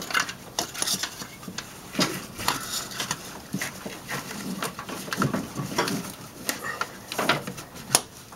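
Spark plug wires being worked out of their plastic retaining looms by hand: irregular clicks, snaps and rubbing of plastic and wire, several a second.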